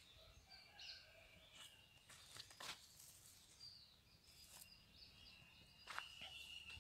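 Near silence: faint outdoor ambience with faint bird chirps and a couple of soft clicks.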